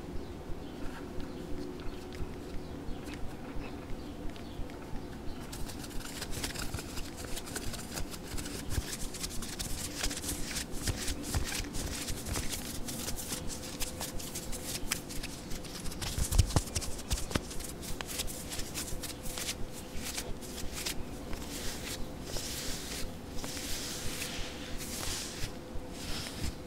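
Satin-gloved fingertips tapping on a camera lens in an even rhythm, about two to three taps a second. After about five seconds a soft rustle of satin rubbing over the lens joins in.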